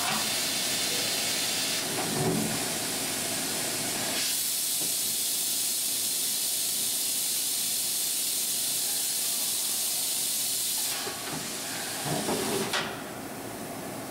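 Kitamura Mycenter 2 vertical machining center's umbrella-type automatic tool changer going through a tool change: a steady loud air hiss that grows brighter about four seconds in and dies away near eleven seconds, with a thud about two seconds in and a short run of thuds near the end as the carousel swings in and back out.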